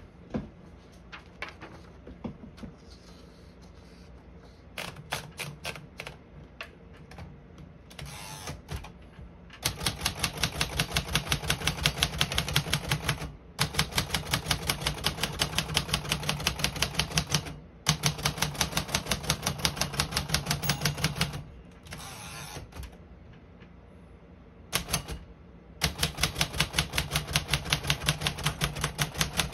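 1951 Royal Quiet De Luxe portable typewriter being typed on: a few scattered key strikes, then several runs of rapid, even key strikes, each a few seconds long with short pauses between. The keys strike without sticking.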